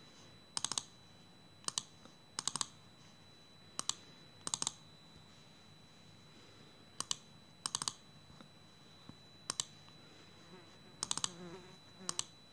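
Sharp taps on a phone's touchscreen, coming in quick pairs and small clusters every second or two as the screen is tapped and double-tapped.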